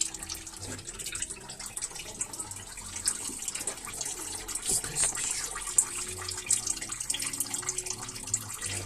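Liquid running and dripping, with many small clicks and clinks throughout, over quiet background music.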